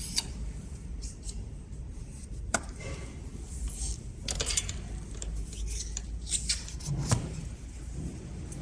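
Small metal tool parts and fittings being handled: scattered sharp clicks and clinks, the loudest about two and a half seconds in and again near seven seconds, over a steady low hum.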